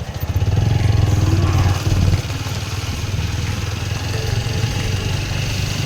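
A vehicle's engine running while on the move, with road and wind noise. The low hum is louder for about the first two seconds, then settles lower and steady.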